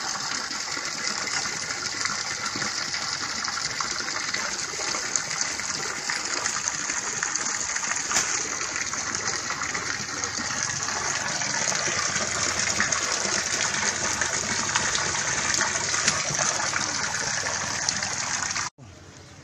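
Water jetting from a PVC pipe into a shallow pool: a steady, loud rushing splash that cuts off suddenly near the end.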